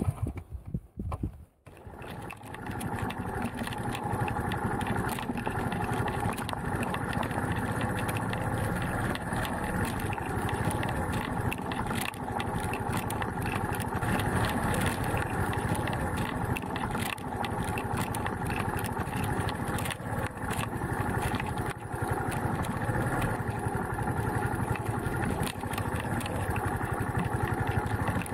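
Trail motorcycle engine running steadily as the bike is ridden along a rough, stony lane. The sound drops away briefly about a second in, then comes back and runs evenly.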